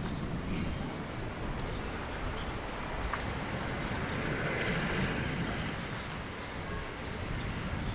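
Steady outdoor background noise with a low rumble, and a single faint click about three seconds in.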